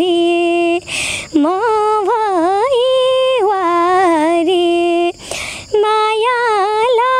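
A young woman singing a Nepali song solo without accompaniment, holding long notes with wavering ornamented turns, with two short breaths between phrases, about a second in and about five seconds in.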